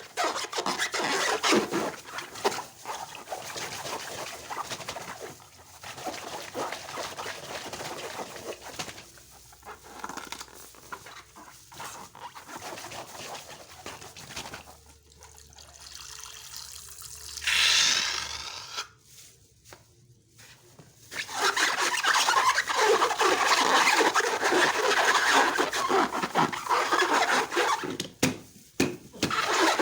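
Slime being mixed and squished by hand: a continuous wet, crackly squelching. About 18 seconds in there is a brief louder sound and a short quiet pause, after which the squishing resumes louder and denser.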